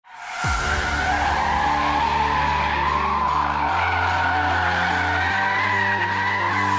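Tyres of a Mercedes-AMG EQE 53 electric sedan squealing in one long wavering screech as the car drifts, with no engine note. Music with a deep bass line plays underneath, its bass note shifting twice.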